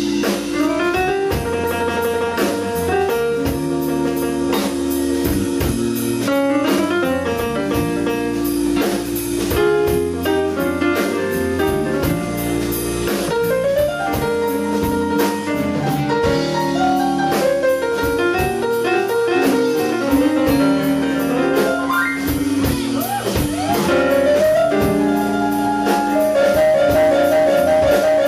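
Live blues band playing an instrumental passage with drum kit, keyboard and electric guitar, without singing. Near the end a fast repeated trill note rises above the held chords.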